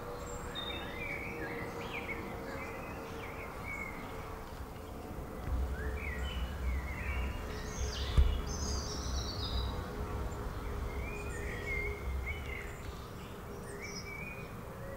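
Garden birds singing, with short high chirping phrases one after another throughout, over a faint steady hum. A low rumble comes in about five seconds in and fades near twelve seconds, with one sharp knock about eight seconds in.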